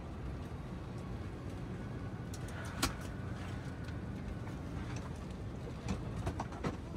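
Steady low hum of an Airbus A320 cabin at the gate during boarding, with a few sharp clicks and knocks, the loudest about three seconds in.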